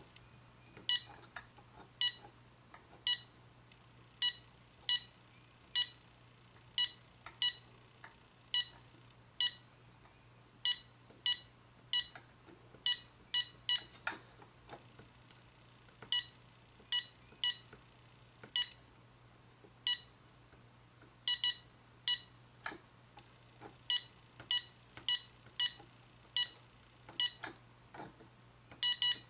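Keypad beeps from a General Electric 900 MHz cordless phone (model 26938GE1-D): the same short beep for each button press, dozens of presses at an uneven pace, with occasional quick pairs. Each beep marks a press that registered on the freshly cleaned button contacts.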